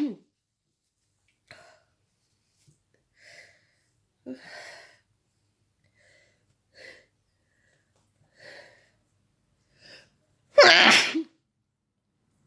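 A person's sneezing fit: the tail of one sneeze at the very start, then a few faint short sounds, then one loud sneeze about ten and a half seconds in.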